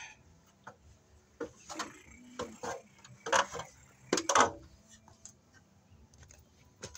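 Footfalls and clunks on a ladder as a person climbs down it: a run of irregular knocks, the loudest coming about three to four and a half seconds in.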